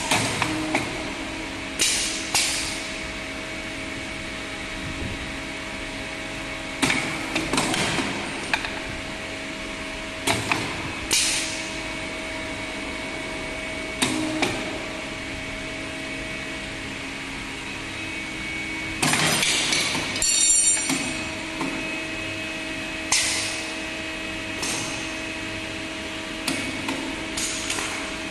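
CNC wire bending machine with automatic loader running with a steady hum, broken by repeated sharp metallic clanks and clatters at irregular intervals as it works the wire, with a longer rattling stretch about two-thirds of the way through.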